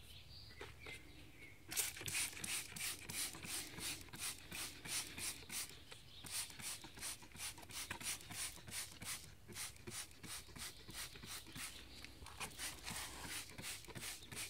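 Hand trigger spray bottle being pumped rapidly, each squeeze a short hiss of spray, about three a second, starting about two seconds in.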